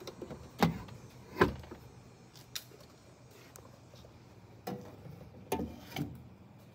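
Sharp clicks and knocks of a pickup truck's chrome side mirror and fuel filler door being handled by hand. Two loud knocks come about a second apart near the start, and a few lighter clicks come near the end.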